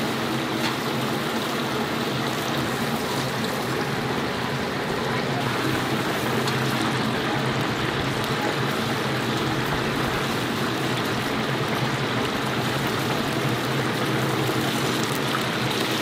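Chicken deep-frying in a large cauldron of oil, a steady bubbling sizzle, with a faint low hum underneath.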